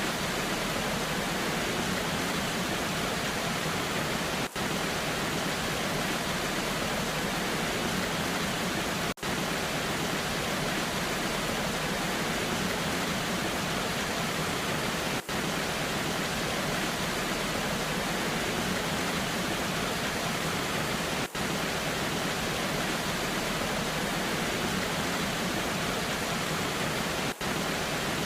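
A waterfall in the rain: a steady, even rush of falling water, broken by a very brief dip in level about every six seconds.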